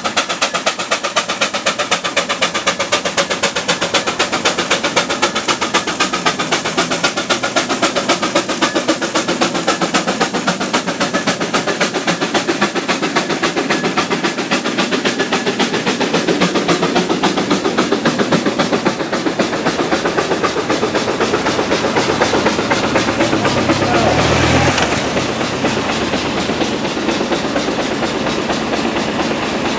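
Steam traction engine working hard uphill, a rapid even beat of exhaust chuffs and mechanical clatter, joined by its iron-wheeled living van as it passes close by. About three-quarters of the way through, the deeper rumble of a following motor vehicle briefly swells.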